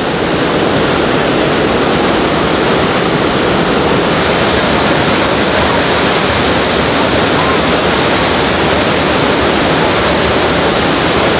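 The Rhine Falls: a huge waterfall crashing down, a loud, steady rush of water at close range.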